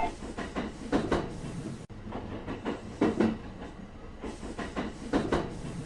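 Train wheels clacking over rail joints: clusters of two to four sharp clicks recurring about every two seconds over a faint low rumble.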